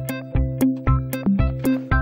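Background music: short keyboard-like notes over a steady beat of about two low thumps a second.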